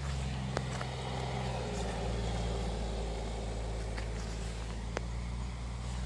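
A steady low engine drone, with a few sharp clicks over it.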